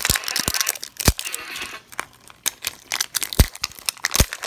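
Hard plastic capsule ball of a Mini Brands toy being twisted and pried at by hand: irregular sharp plastic clicks and cracks with crinkling, and a few heavier knocks.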